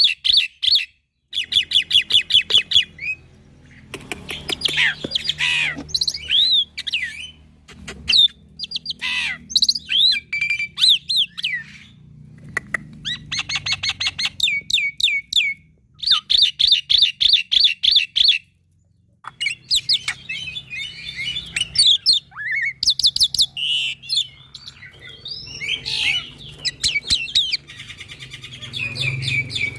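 Young black-winged myna (jalak putih) singing a varied song: rapid trains of sharp repeated chips, whistled glides and harsh squawks in bursts, with brief breaks between phrases.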